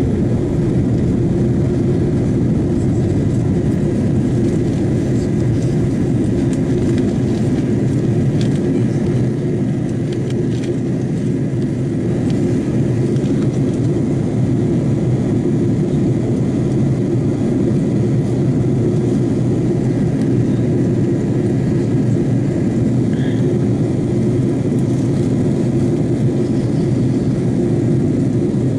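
Steady, low-pitched cabin noise of an Airbus A330-200 in flight: the even rush of engines and airflow, unchanging in level.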